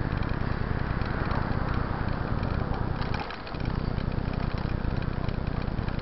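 Wind buffeting the microphone of a camera on a moving bicycle: a loud, fluttering low rumble, with road and bike rattle, that drops out briefly about three seconds in.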